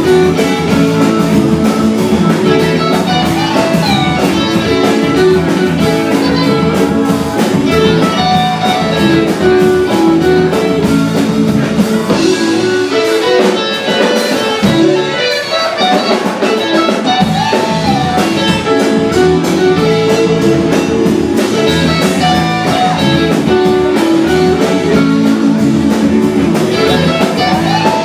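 Live rock band playing: an electric guitar line with bent notes over bass and drums. The low end drops away briefly around the middle before the full band comes back in.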